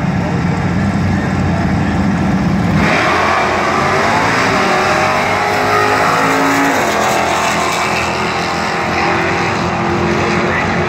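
Two Plymouth drag cars, a 1968 Barracuda and a 1970 Cuda, running steadily on the start line, then launching about three seconds in with a sudden burst of full-throttle engine noise. Engine pitch rises as they accelerate away down the strip, changing again a few seconds later.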